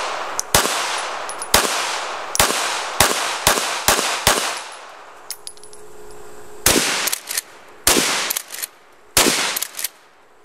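Gunfire: a series of about seven sharp shots over four seconds, a pause of about two seconds, then a quicker volley of about eight more, each shot ringing off briefly.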